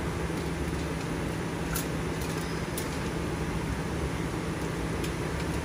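Stone bead milling machine running: a steady electric motor hum under an even grinding rasp, with a few light clicks of stone beads about two and three seconds in.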